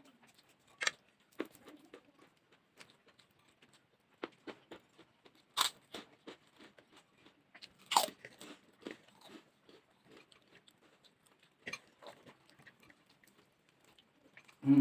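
Close-up chewing of crunchy food, with irregular crisp crunches and bites, two of them louder about a third and halfway through. A short dull thump right at the end.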